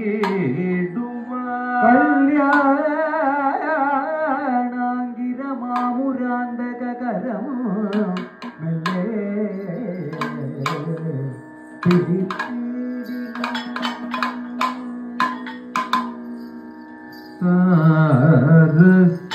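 Kathakali vocal music: a male singer's ornamented, wavering melody over a steady drone, with sharp percussion strikes. It grows louder near the end.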